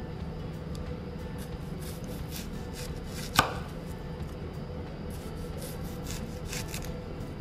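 Food being cut with a knife on a cutting board: soft scrapes and taps, with one sharp knock about three and a half seconds in, over a steady low hum.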